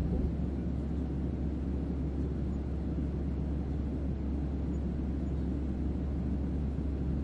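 Jet airliner cabin noise heard from inside: a steady low rumble of engines and airflow that does not change.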